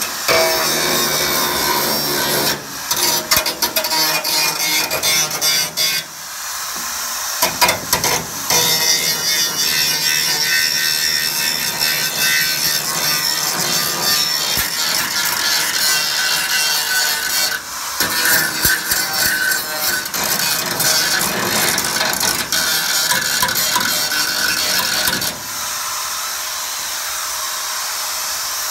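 Gas welding torch flame hissing against sheet steel, with dense crackling and spitting as the metal is heated and fused, broken by a few brief dips. Near the end the crackling dies away and a steady hiss remains.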